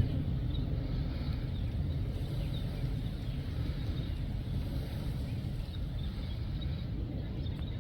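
Steady low rumble of outdoor background noise, picked up all around by a recorder mic set to 360, with faint high chirps now and then.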